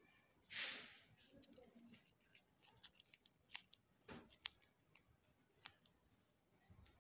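Faint handling noises from a glitter foam flower and a hot glue gun being worked by hand: a short rustle about half a second in, then scattered small clicks and taps.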